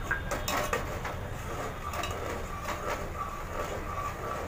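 Metal spoon clinking and scraping against an aluminium pot as jaggery syrup is stirred, with a few sharp knocks in the first second and again around two to three seconds in.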